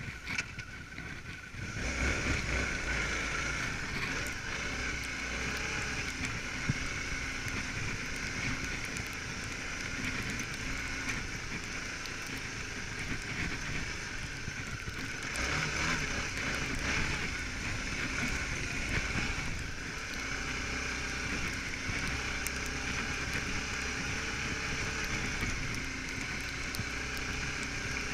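Suzuki V-Strom 650's V-twin engine running while the motorcycle is ridden, mixed with wind and tyre noise. The sound comes in suddenly at the start and grows louder about two seconds in.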